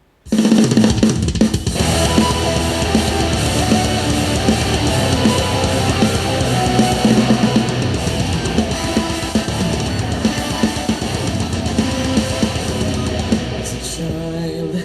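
Instrumental passage of a heavy rock song, with a drum kit and guitars, played back through a smart speaker. It starts just after a brief silent break.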